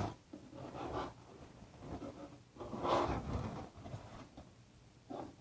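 Styrofoam panel being pushed across a hot wire cutting table, a few soft, uneven rubbing and scraping sounds of polystyrene sliding on the table, the loudest about three seconds in.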